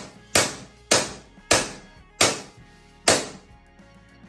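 Claw hammer striking steel rebar laid on a plywood cabinet frame: five sharp blows a little under a second apart, each ringing briefly.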